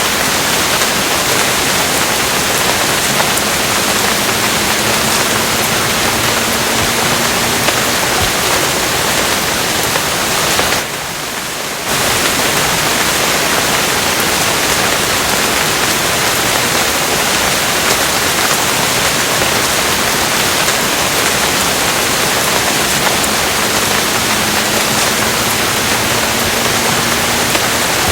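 Steady, dense rainfall, a continuous even hiss. About eleven seconds in it dips quieter for about a second, and a faint low tone slowly rises twice beneath it.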